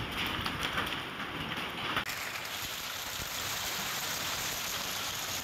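Hailstones falling on the ground and road: a dense steady hiss full of small ticks. About two seconds in it changes abruptly to a smoother, brighter hiss of hail coming down.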